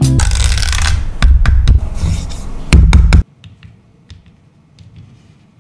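Music with a heavy bass beat and sharp hits that cuts off suddenly about three seconds in, followed by a quiet stretch with a few faint taps.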